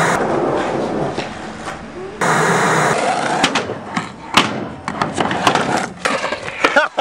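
A burst of TV static hiss for about two seconds, then skateboard wheels rolling, with sharp clacks from the board's pops and landings.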